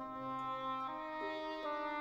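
Instrumental closing music: a melody of held notes moving to a new pitch about every half second over a sustained bass line.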